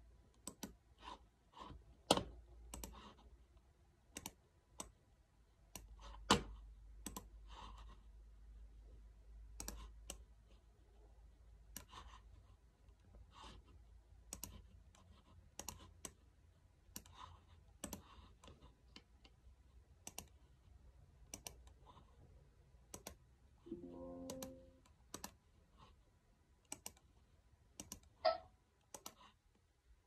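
Scattered, irregular clicks of a computer mouse and keys being worked at a laptop. About three-quarters of the way through comes a brief low tone lasting about a second.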